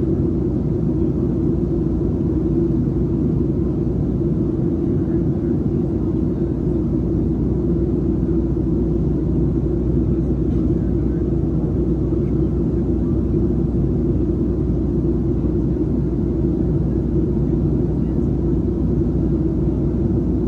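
Steady low drone inside the cabin of a Boeing 737-700 during its descent on approach: the CFM56-7B jet engines and the rushing airflow, unchanging throughout.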